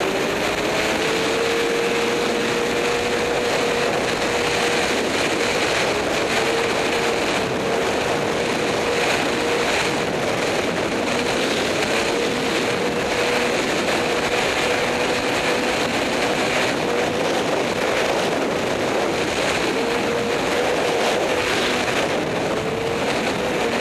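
Arctic Cat 600 twin two-stroke snowmobile engine held at full throttle: a steady high drone whose pitch wavers only slightly, under heavy wind rushing over the microphone.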